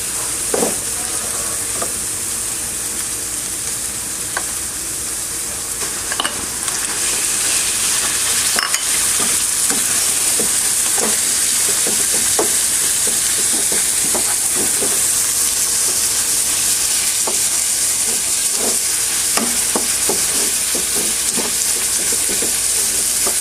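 Pork frying in hot oil with garlic and onion, a steady sizzle that grows a little louder about eight seconds in. Frequent short scrapes and taps of a utensil stirring it in the pan.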